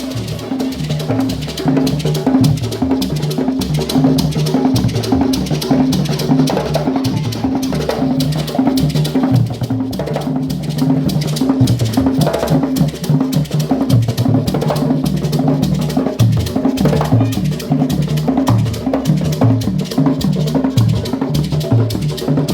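Traditional African drum ensemble playing a fast, dense rhythm. Several drums sound at different low pitches, with sharp wooden-sounding strokes on top.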